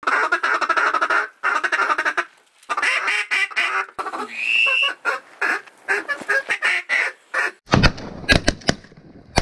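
Duck calls blown hard in quick, rhythmic runs of quacks, then near the end a rapid volley of shotgun shots.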